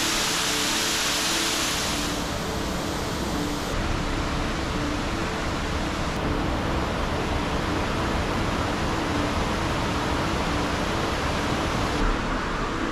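Steady rush of a waterfall and mountain stream. Its brightness shifts abruptly a few times as the shots change.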